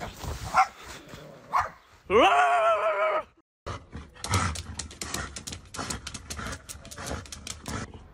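Dog barking: two short barks, then a loud drawn-out bark of about a second that rises at its start and then holds. After a sudden cut, a run of sharp, irregular clicks and taps.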